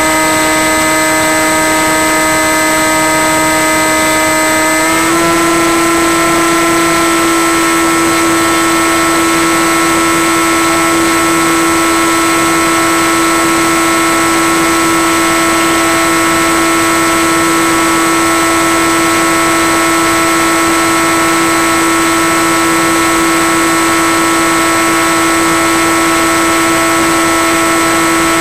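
Electric motor and propeller of a Skywalker FPV plane in flight, heard from on board: a loud, steady drone with a clear pitch and a thin high whine alongside. About five seconds in the pitch steps up slightly as the throttle is raised.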